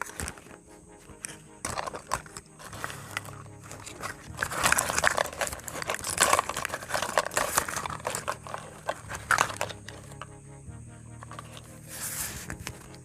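Packaging crinkling and rustling in bursts as toy pieces are unwrapped, with small clicks, loudest from about four to seven seconds in.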